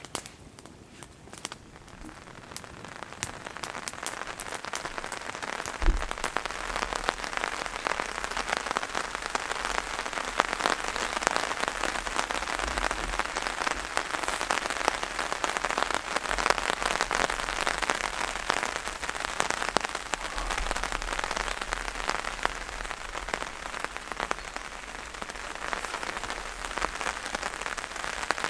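Rain pattering on a tarp shelter, a dense steady patter of drops that builds over the first few seconds. There is a single low thump about six seconds in.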